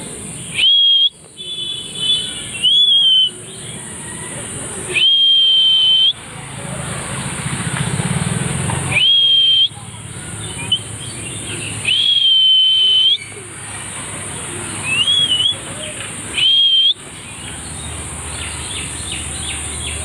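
An Indian ringneck parakeet whistling: about seven loud, clear whistles, each sliding up and then held on one note, every two to four seconds. A brief warble comes about a second in. A steady high hiss runs underneath.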